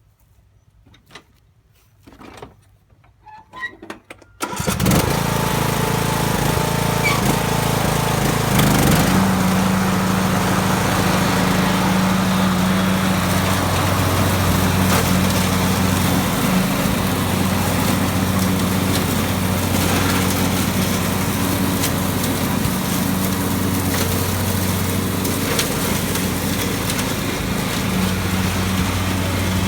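John Deere D110 riding lawn mower engine comes in abruptly about four and a half seconds in after a few faint clicks, rises in pitch a few seconds later, then runs steadily.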